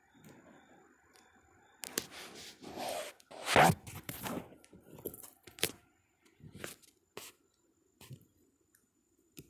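Close handling noise: irregular rustling and scraping bursts, as of the phone brushing against chicken of the woods fungus. The loudest burst comes about three and a half seconds in, and the bursts thin out near the end.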